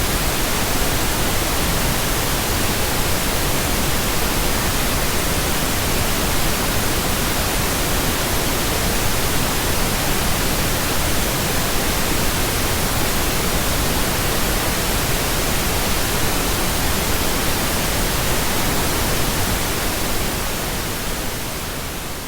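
Steady pink noise, an even hiss spread across all pitches, generated audio with no other sound in it. It begins to fade out near the end.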